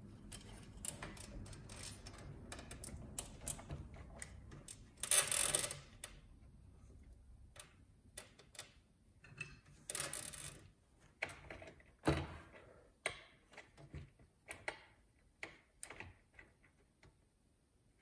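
Braided sleeved PC power cables rustling and scraping as they are worked through a tight gap behind a computer case's motherboard tray, with scattered clicks and taps against the metal panel. Two longer scraping rustles come about five and ten seconds in, and a sharp click about twelve seconds in.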